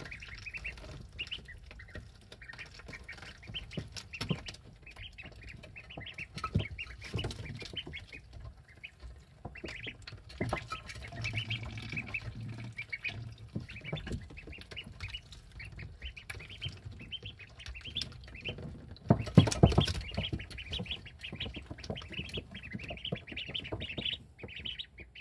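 Ducklings peeping continually in quick, high notes, with scattered taps and clicks as they feed and drink from the dishes. There is a louder clatter about 19 seconds in.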